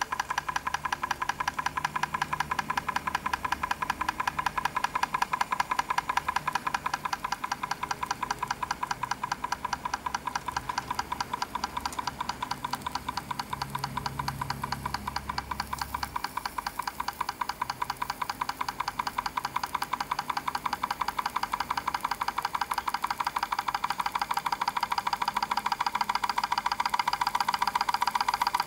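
Small model hot air engine with a glass cylinder running steadily, its moving parts making a rapid, even ticking clatter.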